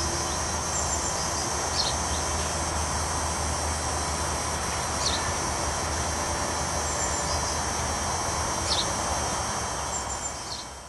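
Steady outdoor background noise, a constant rushing wash, with a handful of short high bird chirps every few seconds; it fades out near the end.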